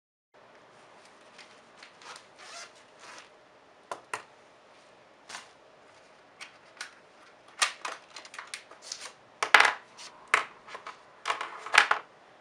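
Hands handling a paper planner and a clear plastic sleeve: a series of short, crisp rustles and taps of paper and plastic that come faster and louder in the second half.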